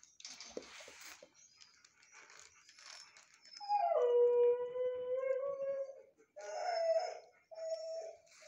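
A dog howling: one long howl about three and a half seconds in that drops in pitch and then holds, followed by shorter howls near the end.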